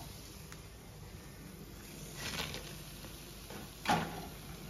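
Hot oil in a frying pan sizzling faintly after the fried prawn pakodas have been lifted out, with one short louder noise about four seconds in.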